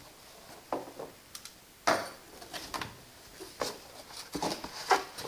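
Cardboard packaging being handled and pulled out of a box: irregular scraping and rustling, with a few sharper knocks.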